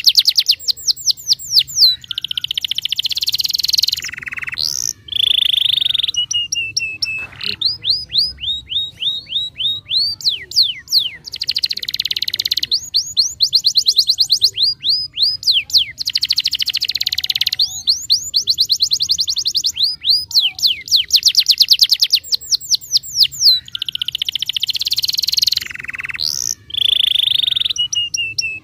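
Domestic canary in full, continuous song: runs of quick down-slurred whistled notes alternate with dense, fast buzzy trills, the same phrases coming round again and again.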